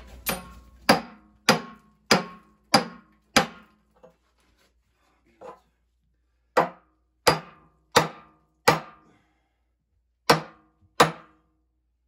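Hammer blows on a steel tool wedged between the sections of a cast-iron boiler, driving them apart: a run of six sharp, ringing metal strikes, a pause, four more, then two.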